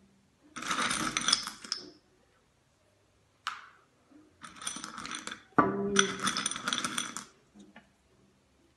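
Small smooth pebbles clattering and clinking against each other as they are handled and picked out, in three bursts of a second or so, with a single sharp click between the first and second.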